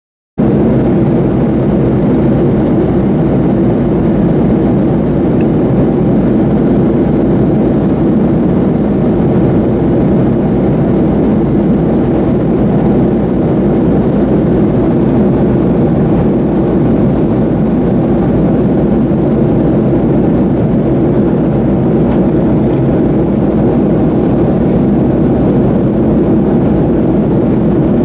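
Steady cabin noise inside a Boeing 737-300 in flight: its CFM56 turbofan engines and the rush of air around the fuselage make a constant low drone that does not change.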